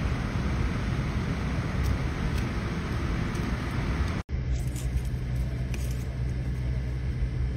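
Steady low rumble of an idling vehicle engine with outdoor noise. It cuts off abruptly about four seconds in, then resumes as a steadier, lower engine hum.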